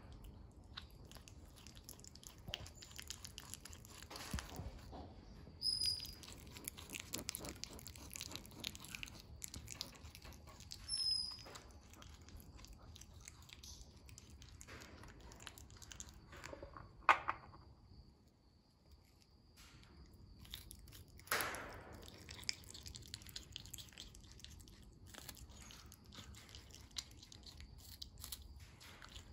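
Prehensile-tailed porcupine chewing and crunching food, a steady run of fast small crunches and clicks. Two short high chirps come about 6 and 11 seconds in, and two louder brief knocks about 17 and 21 seconds in.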